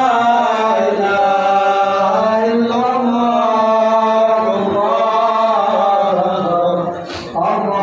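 One man's voice chanting in long, drawn-out melodic phrases, with a short break for breath about seven seconds in.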